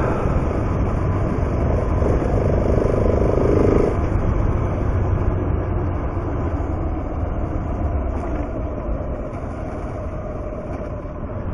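Adventure motorcycle's engine running under way on a gravel road, mixed with steady wind and road noise; the engine note is stronger from about two to four seconds in, and the sound eases slightly near the end.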